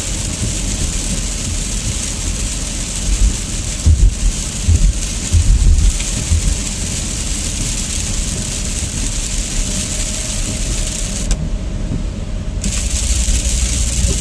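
Heavy rain on a moving car heard from inside the cabin: a steady rush of rain on the roof and windshield and tyres on the wet road, with a few low thumps about four to six seconds in. The hiss of the rain cuts out abruptly for about a second near the end, then returns.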